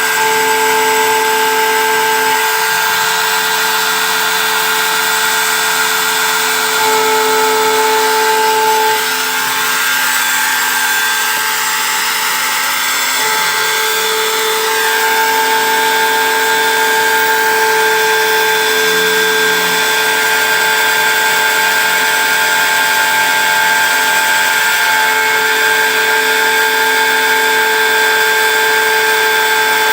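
CNC engraving machine running and cutting, a steady motor whine made of several tones whose strength shifts every few seconds.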